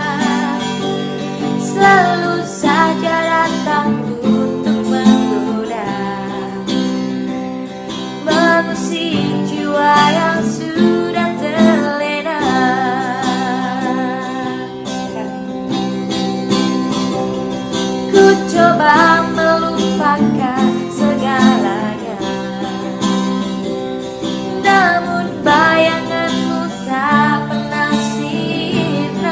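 Song with acoustic guitar accompaniment and a gliding, wavering melody line above it; no sung words.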